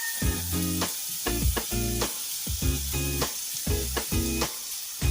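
Chopped capsicum and onion frying in hot oil in a kadai, a steady sizzle with stirring, under background music with low notes.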